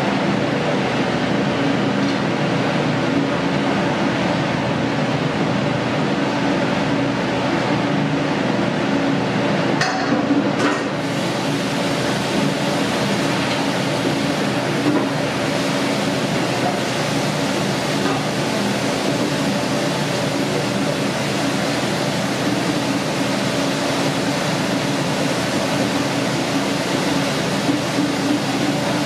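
A steady whirring hum and hiss, with a few light clinks about ten seconds in.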